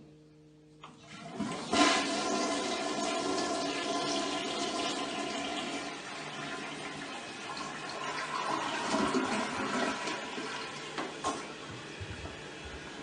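Toilet flushing: water starts rushing into the bowl about a second in, runs loud and steady for several seconds, then goes on more quietly from about six seconds in.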